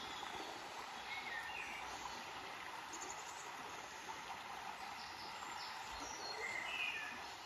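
River water rushing steadily over shallow rapids, with a few short bird calls now and then.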